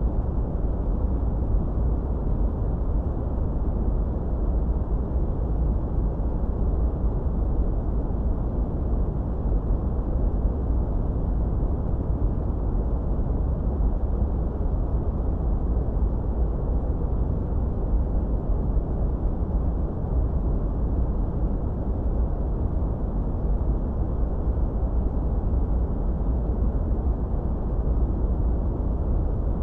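Steady noise track played for tinnitus masking: an even, unchanging hiss that is deep and muffled, with most of its weight in the bass and almost no treble, so it sounds more like a low rumble than bright white noise.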